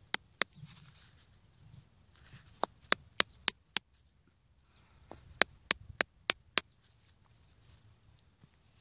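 Sharp, hard taps of a hand-held block on the top of a grapevine scion, driving it down into the cleft of the rootstock to seat a cleft graft. There are two taps near the start, a run of five in quick succession around three seconds in, and six more about two seconds later.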